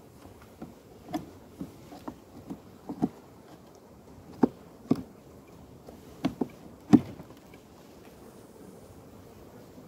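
Metal hive tool knocking and prying at the wooden frames of an open beehive: about a dozen sharp, irregular knocks and clicks, the loudest about seven seconds in.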